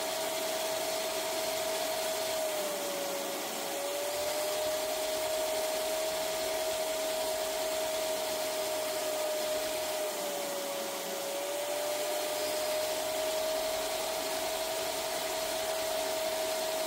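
Wet/dry shop vacuum running steadily, its nozzle drawn over a cloth seat back to suck out shampoo and water from the upholstery. The motor's steady whine dips briefly in pitch twice.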